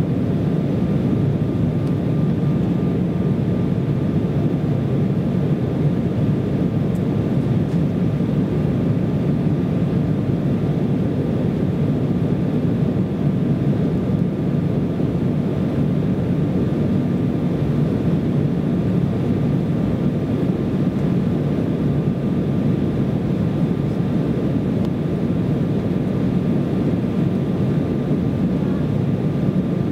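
Steady cabin noise of an Embraer ERJ-170 airliner in flight: the low, even rumble of its CF34 turbofan engines and the rush of air past the fuselage, with a faint steady high whine.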